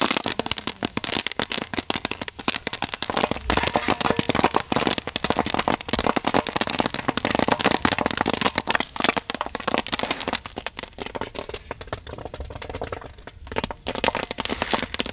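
Hot, freshly popped popcorn in a large metal pot, crackling and rustling densely as it is stirred and scooped out with a big spoon, thinning out near the end.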